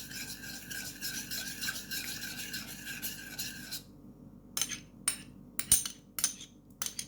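A utensil stirring hot milk with an egg yolk fast in a pot, scraping round and round in quick strokes to beat the yolk in before it curdles. About four seconds in the stirring stops, and a few sharp clinks of the utensil on the pot follow.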